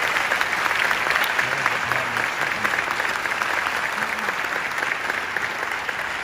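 Audience applauding, a dense patter of clapping that slowly fades.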